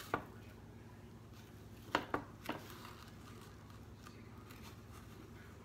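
A few light clicks of a wooden corn-dog skewer and hands against a glass baking dish as a battered corn dog is rolled in panko crumbs: one at the start, then three close together about two seconds in, over a low steady room hum.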